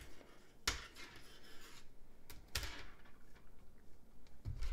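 Knitting needles clicking softly as stitches are worked onto a circular needle, with a few separate light clicks and a low bump near the end.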